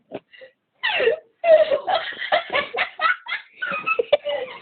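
Kids laughing hard in choppy bursts, starting about a second in after a short quiet spell.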